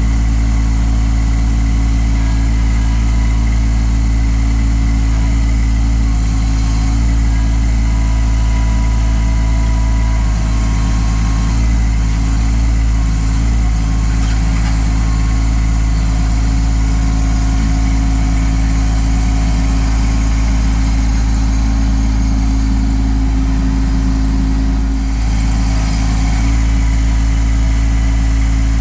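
Kubota LX2610 compact tractor's three-cylinder diesel engine running steadily.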